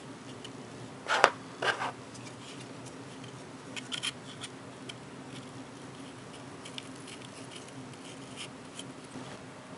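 Hard 3D-printed plastic parts of a Raspberry Pi case clicking and scraping as its hinged doors are handled and fitted onto their hinges. A few sharp clicks, the loudest about a second in, with lighter ticks and rubbing after.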